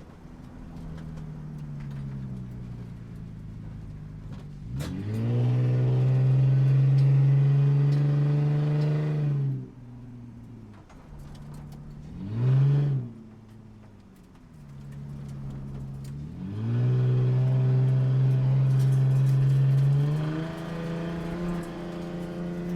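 Sports car engine driving close by. Its pitch rises sharply about five seconds in and holds steady for a few seconds, then drops. A short blip of revs follows, then it climbs again and holds before easing off near the end.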